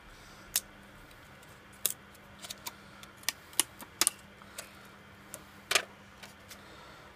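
Irregular sharp clicks and crackles of a clear plastic backing film being peeled off a new phone touchscreen digitizer with pre-applied adhesive, as the glass panel is handled.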